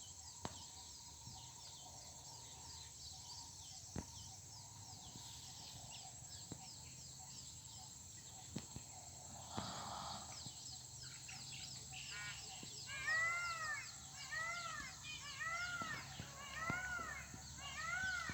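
Outdoor ambience of birds calling over a steady high drone, with many quick high chirps and a few sharp clicks. In the last five seconds a bird repeats a rising-and-falling call about once a second.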